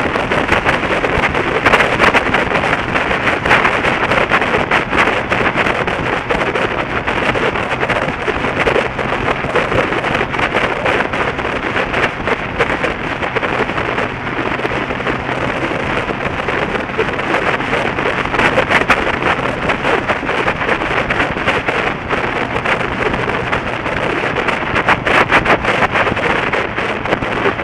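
Wind rushing and buffeting over the microphone of a vehicle moving at road speed, with a steady low engine hum underneath.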